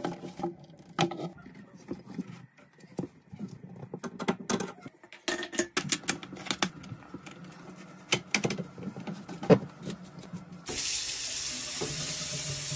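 Light clicks and knocks of a plastic faucet wrench and hand-tightened fittings on a bathroom faucet's supply lines and mounting nut under the sink, irregular and scattered. Near the end the new faucet is turned on and its water stream runs steadily into the basin.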